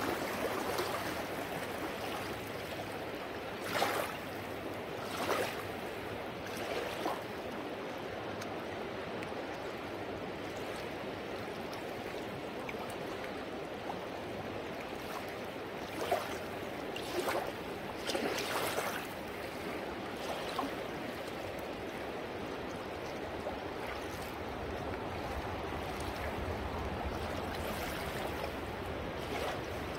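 River current flowing steadily past, a constant rushing noise, with a few brief louder noises at about 4, 5, 16 and 18 seconds in.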